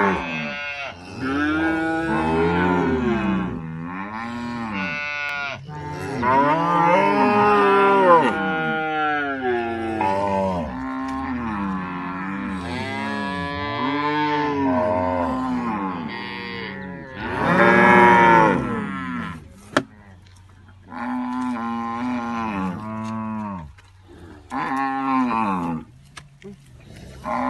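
Ankole long-horned cattle mooing over and over, several animals' low calls rising and falling and overlapping, with a few short pauses.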